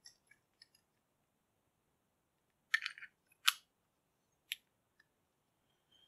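A few light metallic clicks and a short rattle from a lock cylinder being handled and shaken to clear out the metal debris from drilling and tapping. There is a cluster of clicks a little before three seconds in, a sharper click about half a second later, and one more about a second after that.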